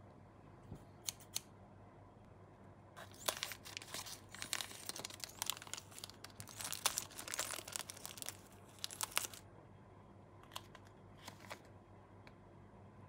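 Thin plastic parts bag crinkling and being snipped open with scissors: dense crackling with sharp snips for about six seconds, followed by a few light clicks as the parts are handled.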